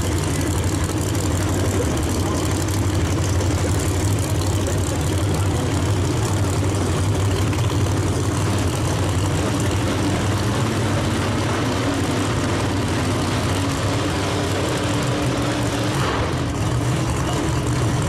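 Drag race car engines idling at the start line, a loud, steady low rumble with no launch.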